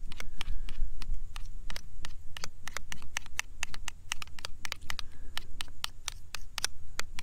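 A spoon stirring and scraping a sauce in a small bowl, making rapid, irregular clicks and light scrapes.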